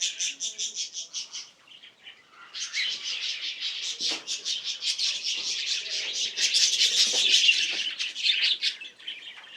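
Small birds chirping in rapid, high, repeated notes, several at once. There is a brief lull about one and a half seconds in, then the chirping resumes and grows fuller.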